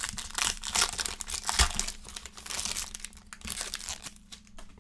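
Foil wrapper of a Panini Chronicles football card pack being torn open and crinkled. It is loudest in the first two seconds and thins out toward the end.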